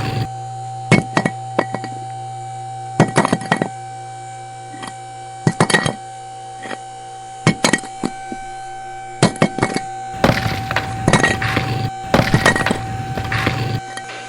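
Irregular clinks and knocks of small hard pieces, mini bricks being handled and tapped into place, with a flurry of them near the end, over a steady droning tone.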